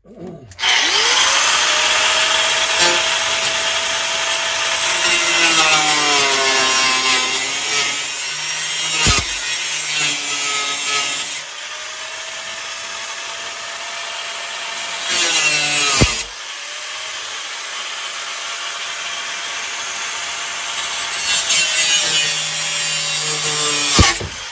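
Corded angle grinder cutting through a school bus's steel wall sheeting. The motor whines up to speed, and its pitch sags each time the disc bites into the metal. It stops and spins up again about two-thirds of the way through, then winds down near the end.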